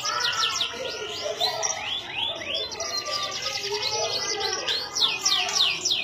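Domestic canary singing: rapid runs of repeated, sweeping high notes, switching to a new phrase every second or two.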